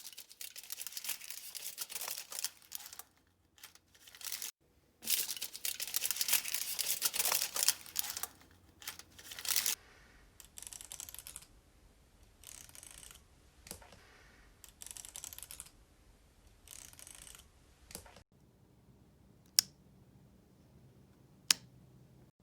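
Dry crackling and rustling from hand-made foley effects in two loud stretches, then softer rustles about every two seconds, then two sharp single clicks near the end.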